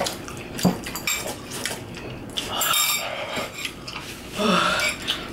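Metal forks and spoons clinking and scraping against glass bowls as noodles are eaten, with bouts of slurping.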